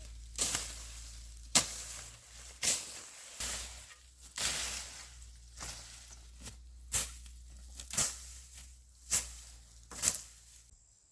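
A hand tool striking again and again, about a dozen hits at roughly one a second, some followed by a short scraping noise. The strikes stop shortly before the end.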